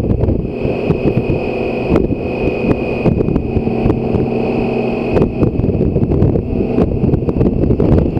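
BMW K1600 GTL motorcycle's inline-six engine running at a steady cruising speed, heard from the rider's position, with wind rushing over the microphone and a thin high steady whine alongside.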